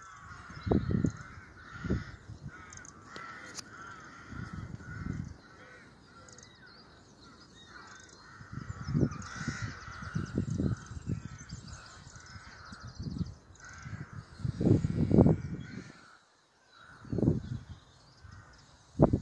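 A flock of crows cawing continuously in the background, a busy overlapping chorus. Irregular bursts of low rumbling on the microphone, loudest around the middle and near the end, come and go over it.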